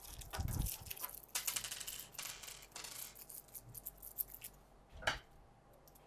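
Handling noises: a quick run of small clicks, taps and rattles that thins out after about four seconds, then one louder knock about five seconds in.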